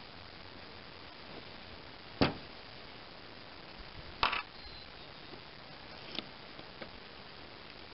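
Sharp clicks and knocks of small metal carburetor parts being handled and set down on a bench: three distinct knocks about two seconds apart, the first the loudest, over a low steady hiss.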